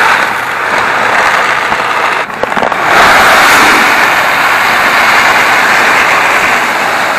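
Granular fertilizer pouring from a bag into a plastic spreader hopper: a steady, dense rattle of pellets piling up, with a brief break about two and a half seconds in before the pour resumes.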